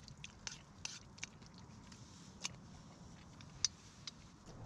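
A person chewing a mouthful of raw beef yukhoe, with faint wet mouth clicks and smacks and a few sharper ticks.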